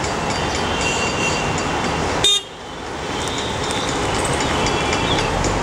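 Steady city traffic noise with vehicle horns tooting. Just after two seconds in there is a brief loud click, the sound drops away abruptly, and it fades back up over the next couple of seconds.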